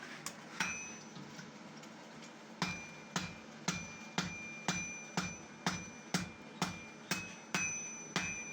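Blacksmith's hammer striking iron, a steady series of ringing metallic blows about two per second, starting about two and a half seconds in after a couple of lone strikes.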